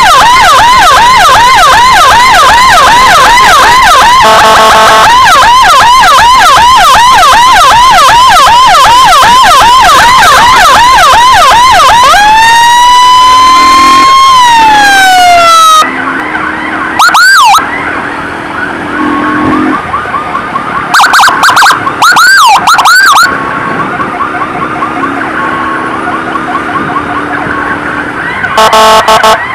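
Electronic emergency siren on an ambulance-escort motorcycle, very loud and close. It runs a rapid yelp cycling about three times a second for some twelve seconds, then one long wail that rises and falls. After a sudden drop in loudness come a few short whoops, and the rapid yelp returns near the end, with short steady horn-like blasts here and there.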